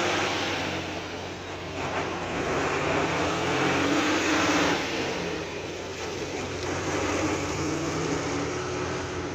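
Vehicle noise swelling and fading twice, as heavy vehicles go by, over a steady low engine hum.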